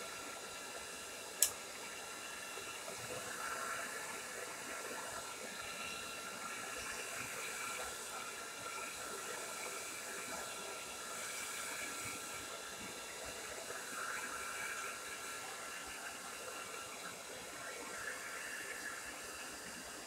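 Tresemmé Salon Smooth Professional hair dryer running steadily, blowing a continuous hiss of air with a faint whine. A single sharp click about a second and a half in.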